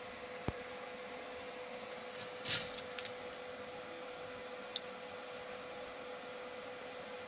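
Small handling sounds from soldering a 12 V relay circuit on a workbench: a light click, a short scraping burst about two and a half seconds in, and another faint tick, over a steady faint electrical hum.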